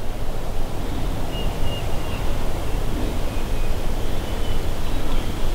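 Wind rumbling on the microphone, a steady low noise, with a few faint, thin, high steady tones over it.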